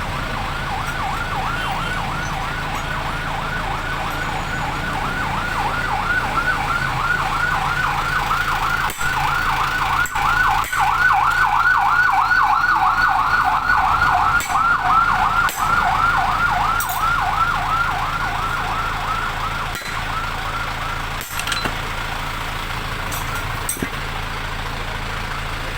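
Siren in a fast yelp, about four falling whoops a second, growing louder toward the middle and fading away near the end, as a passing emergency vehicle would. A few sharp knocks sound over a low steady hum.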